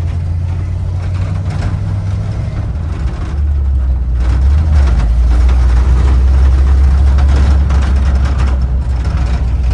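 A vehicle's engine running with a steady low drone. About three seconds in, the pitch drops to a lower, louder note and holds there.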